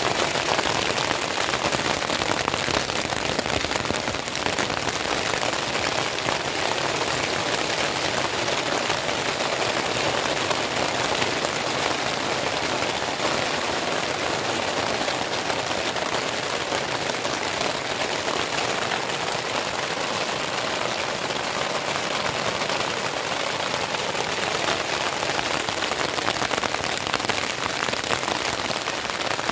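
Steady rain falling on a plastic tarp: an even, dense hiss that does not let up.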